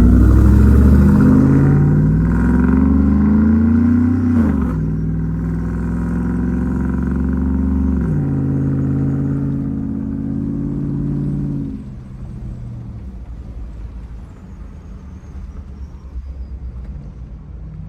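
Stock 5.3-litre V8 pickup with a Borla XR1 true dual exhaust and X-pipe accelerating hard, its pitch climbing then dropping at two upshifts, about four and eight seconds in. It holds a steady note, then fades to a low rumble about twelve seconds in.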